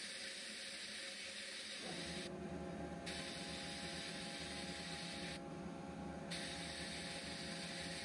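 Sandblasting cabinet's nozzle hissing steadily as abrasive is blasted onto small antique gears and parts, cutting out briefly twice when the trigger is released, with a steady hum underneath.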